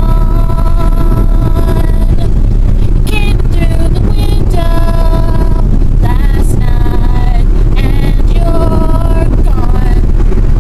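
A woman singing in long held notes, several drawn-out phrases with short breaks between them, inside a moving car's cabin over the steady rumble of the engine and road.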